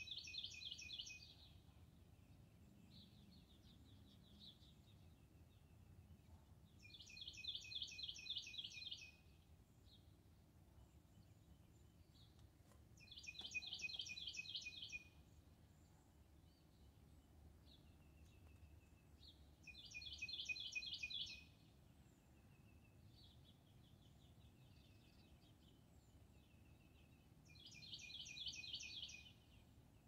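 Northern cardinal singing: five phrases, each a rapid run of repeated whistled notes lasting about two seconds, coming every six to seven seconds, with fainter chirps between them.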